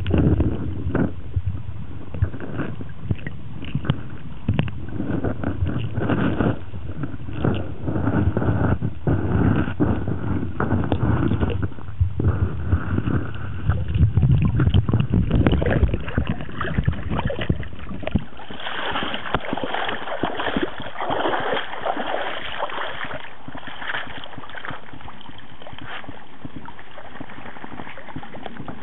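Muffled sloshing and gurgling of water, heard from an underwater camera beside a dog-paddling corgi, with many short knocks. About two-thirds of the way in the low rumble drops away, leaving a thinner, hissy splashing of water.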